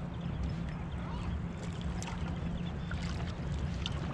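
Yamaha outboard motor idling as a steady low hum, with water washing around the boat and a few faint ticks.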